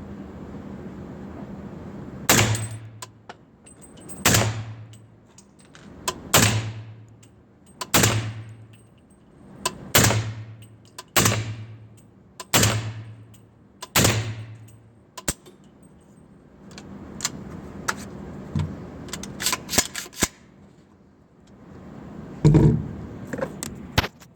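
Aero .300 Blackout rifle firing subsonic rounds through a Sig SRD 7.62 titanium QD suppressor: eight suppressed shots, about one every one and a half to two seconds. After them come a run of small clicks and one heavier thump near the end.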